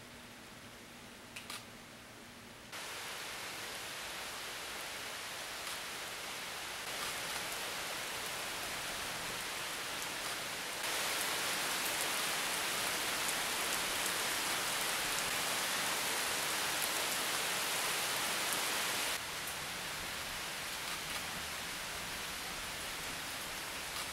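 Steady rain hiss during a thunderstorm, with no thunder. Its strength changes abruptly several times, and it is heaviest for about eight seconds in the middle.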